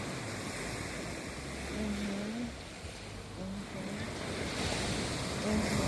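Ocean waves washing onto a shore, a steady rushing surf, with some wind on the microphone.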